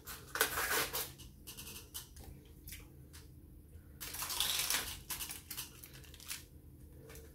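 Plastic film lid being peeled and torn off a plastic coleslaw tub, with crinkling of the plastic in irregular bursts, loudest near the start and again about four seconds in.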